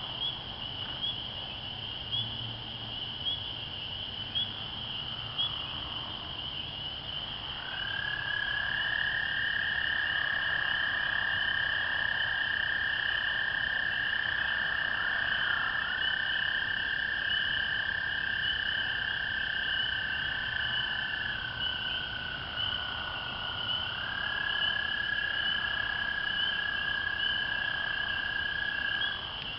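A chorus of spring peepers giving high, short rising peeps over and over, with American toads giving long, steady musical trills. One toad starts trilling about a quarter of the way in and holds it for over ten seconds, a slightly lower-pitched toad overlaps it, and a third trill runs near the end.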